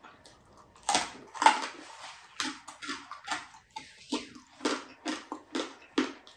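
Close-up eating sounds from a person's mouth: a bite about a second in, then steady chewing about twice a second.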